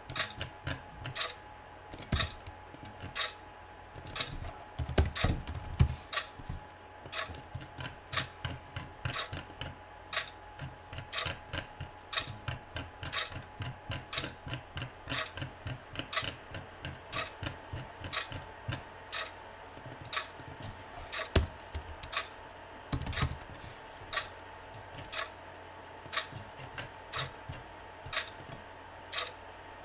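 Typing on a computer keyboard: a run of quick, irregular keystroke clicks with a few heavier presses, over a faint steady hum.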